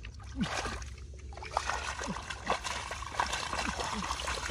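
Water splashing and trickling, with many short plops and gurgles.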